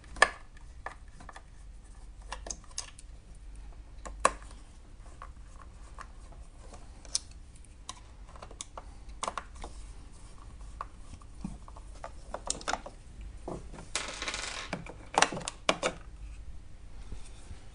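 Small screwdriver clicking and scraping on the screws and plastic housing of a Saeco espresso machine as the drip tray support's four screws are taken out, in scattered sharp ticks and taps. Near the end, a brief rasp and a cluster of plastic clatters as the drip tray support is pulled free.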